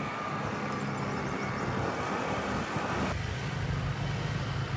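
Motor scooter engine running steadily, with road noise. The sound changes abruptly about three seconds in.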